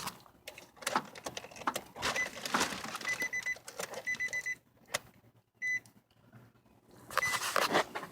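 Car keys rattling and clicking, with groups of short, high electronic beeps, three or four in quick succession, then single beeps near the end.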